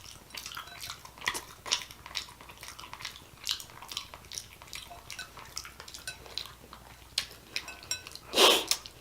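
Light, irregular clinks and clicks of eating utensils against dishes, with a short, louder rush of noise near the end.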